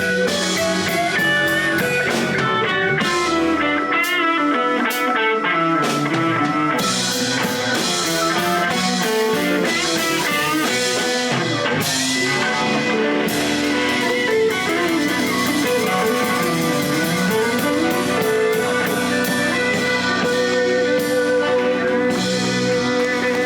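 Live blues band playing: electric guitar leads with bent notes over bass and drum kit.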